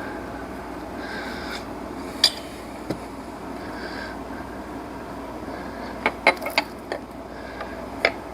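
A few sharp metallic clinks and taps of hand tools and parts against the engine while a serpentine belt and alternator are being fitted, with a cluster of clicks about six seconds in.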